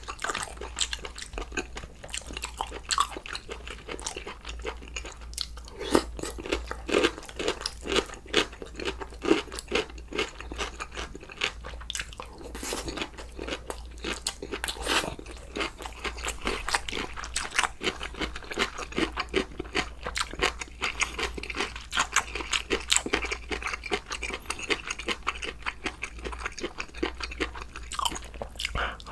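Close-miked eating sounds from a sundae-gopchang hot pot meal: continuous chewing and crunching with irregular wet smacks, over a steady low hum.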